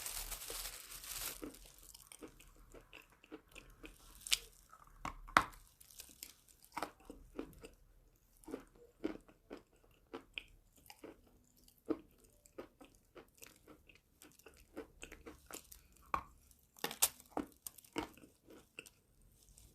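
Close-up crunching and chewing of hard chalk: a loud crunchy bite at the start, then a long run of small, sharp crunches and clicks, with a few louder snaps near the middle and the end.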